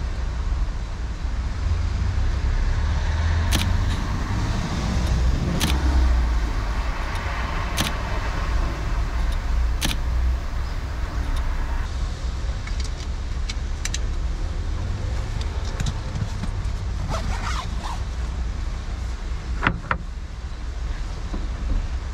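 A steady, fluctuating low rumble with scattered sharp clicks and knocks as camera gear is handled in the back of a van.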